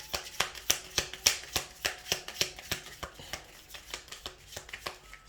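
A deck of divination cards being shuffled by hand: a run of quick, irregular card clicks and slaps, thinning out toward the end.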